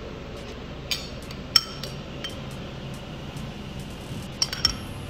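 Metal spoon clinking against a small glass bowl while serving toppings: a few sharp clinks, the loudest about one and a half seconds in, and two quick ones near the end.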